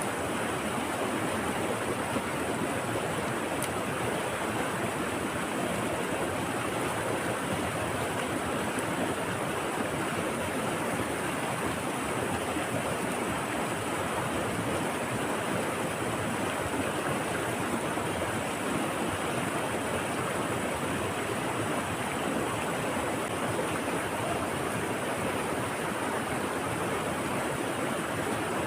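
Fast-flowing stream water rushing steadily over rocks, an even, unbroken noise.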